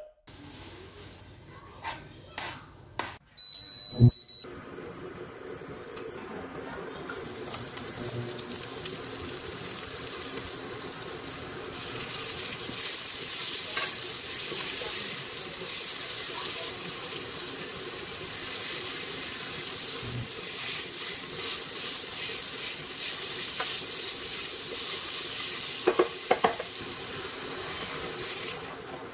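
Sliced onions, tomatoes and peppers sizzling in oil in a frying pan, stirred with a slotted spoon, after a few sharp knocks in the first seconds. The sizzle grows stronger, then dies down near the end as water is poured into the pan.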